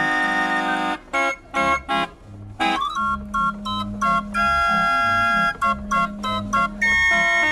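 A 45-key Bruns trumpet barrel organ, hand-cranked, playing a tune from a potpourri. Short detached chords give way, after a brief pause about two seconds in, to longer held notes over a steady bass.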